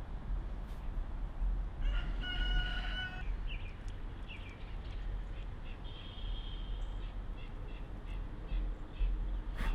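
A bird calls in the background, one pitched call lasting about a second, two seconds in, then thinner high calls and chirps later. Under it is a steady low rumble and a few sharp clicks.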